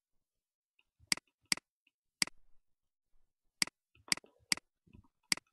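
Computer mouse button clicking, seven sharp, irregular clicks, as the Grab tool drags parts of the model on screen.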